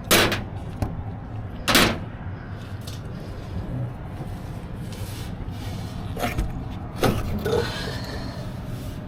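A few sharp knocks and clanks of metal being handled, over a steady low mechanical hum.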